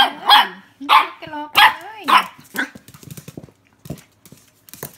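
Puppy barking in play, about six sharp high-pitched yaps in the first two and a half seconds, then only faint scuffs and ticks.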